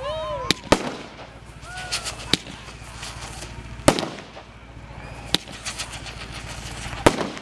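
Aerial firework shells bursting, about six sharp bangs spaced one to two seconds apart, the loudest about four seconds in, with fainter crackling between them.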